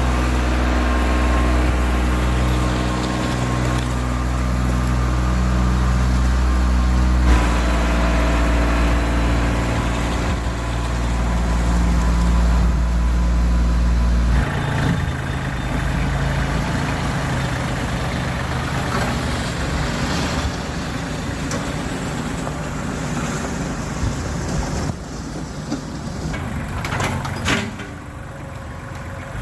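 Kubota compact tractor's diesel engine running steadily while it works a box blade spreading hard-pack gravel. The deep low part of the engine note drops away about halfway through.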